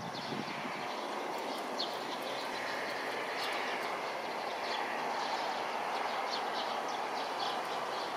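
Steady distant rumble, with small birds chirping briefly again and again on top.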